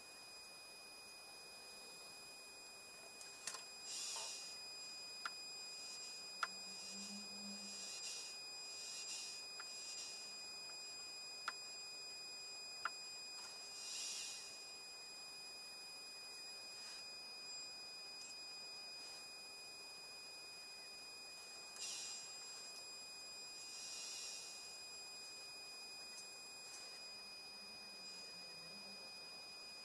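Steady high-pitched electronic whine with a fainter low hum from powered bench test equipment, broken by a few short, soft hisses and faint clicks.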